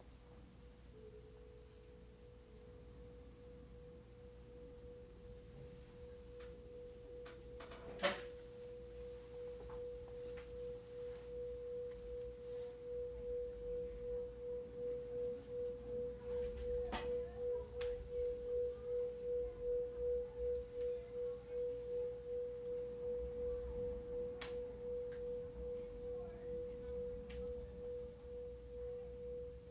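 A single steady, pure sustained tone from the cymbal-and-looper setup, slowly swelling louder and pulsing about twice a second. A sharp tap comes about 8 seconds in, with a fainter one halfway through.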